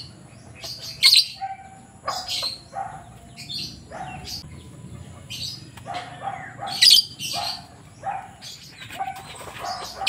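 A racing pigeon flapping its wings while being held, in a series of short rustling flurries. Other birds chirp briefly between them.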